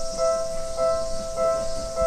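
Japanese railway level-crossing warning bell in the Seibu style, an electronic two-tone ding that repeats about every 0.6 seconds, signalling that a train is approaching.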